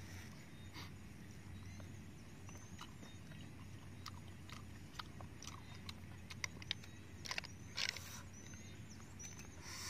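Someone eating cooked snails: quiet chewing and small clicks and taps of snail shells picked with a toothpick, with a cluster of sharper clicks about six to eight seconds in.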